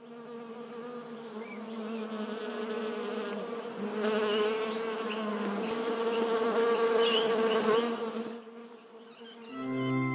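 Buzzing bee sound effect, the buzz wavering in pitch as the bee flies about and louder through the middle. Near the end it gives way to a short steady low tone.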